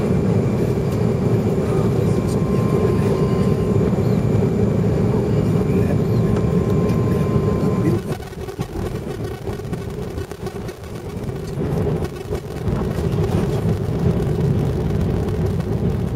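Cabin noise of an Airbus A380 on landing: a steady rumble of engines and airflow over the wing on short final. About halfway through it drops off sharply as thrust comes off over the runway, then builds again toward the end as the aircraft touches down and rolls out.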